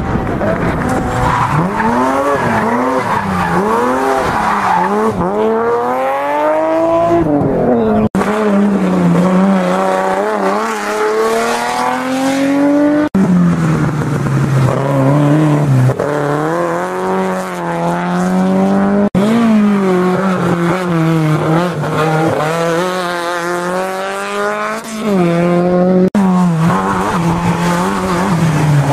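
Touring race cars accelerating hard one after another up a hillclimb, their engines revving high and dropping back at each gear change.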